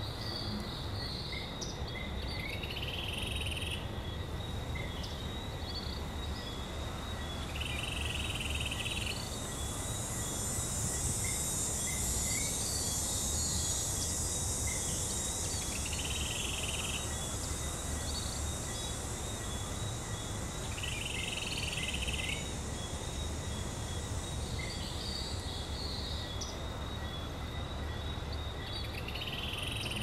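Rainforest ambience: the steady rush of a waterfall under a continuous insect drone, with a short call repeating about every five seconds. A higher hiss swells up through the middle and fades again.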